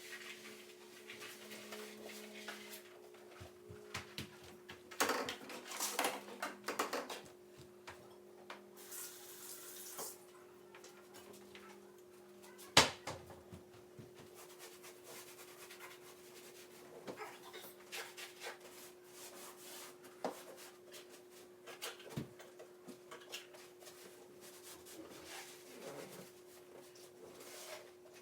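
Workers handling and installing a refrigerator: scattered knocks, bumps and scraping, with one sharp knock about thirteen seconds in, over a steady hum.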